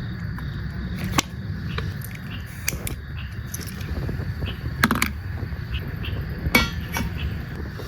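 Scattered sharp clicks and knocks, about six of them, two close together near the middle, over a steady low rumble.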